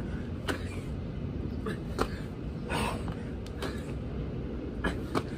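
Burpees on grass: the body's hands and feet hit the ground in short thuds, often in quick pairs about every second and a half, over a steady low outdoor rumble.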